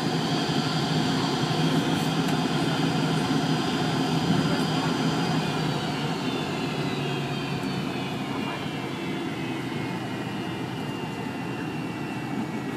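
MD-82's tail-mounted Pratt & Whitney JT8D turbofans heard from inside the cabin while taxiing: a steady rumble with a high whine that starts falling in pitch about five seconds in as the engine power winds down.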